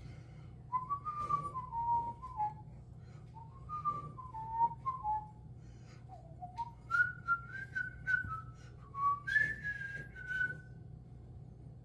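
A man whistling a song tune: a melody of short notes stepping up and down, ending on a longer held high note near the end.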